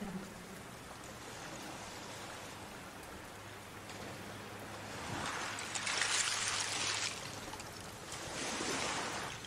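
Water ambience of sea waves: a steady rush of water with two waves swelling up and washing in, the first about halfway through and the second near the end.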